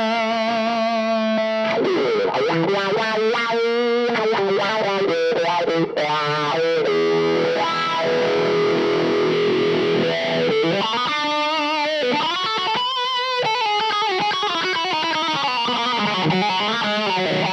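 Electric guitar played through an MXR FOD dual overdrive pedal, giving a driven tone with a lot of mids. The playing mixes held notes wavering with vibrato and bends with busier picked lines.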